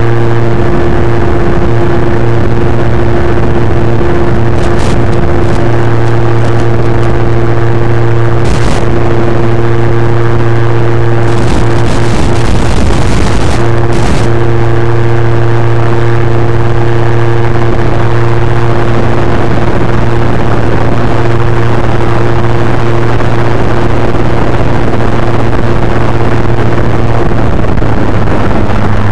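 Electric motor and propeller of an FPV model plane heard through its onboard microphone: a loud, steady buzzing drone. Bursts of crackling static come about 12 to 14 s in, as the radio link breaks up.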